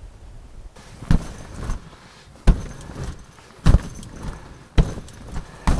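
Slow footsteps in snow, about one step a second.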